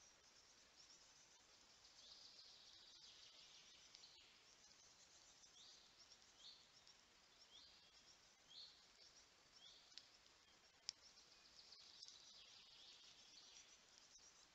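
Faint birdsong: a songbird repeating short high notes about every half second or so, over a quiet forest background, with a single sharp click about eleven seconds in.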